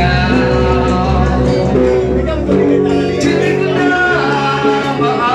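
Live music: two electric guitars playing together, with a man singing.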